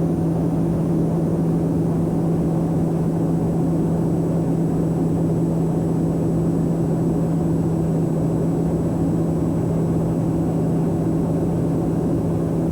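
Steady in-flight cabin drone of a Socata TBM 910 turboprop: a constant low hum from the propeller over an even rush of engine and airflow noise.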